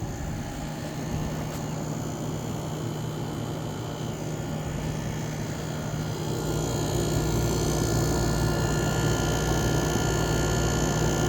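1987 Montgomery Ward by Frigidaire 7000 BTU window air conditioner running, a steady hum with fan noise. It grows louder about six seconds in.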